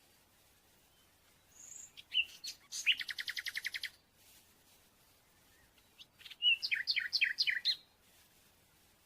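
A small songbird singing: a rapid, high trill lasting about a second, then, a couple of seconds later, a quick phrase of short notes sweeping downward.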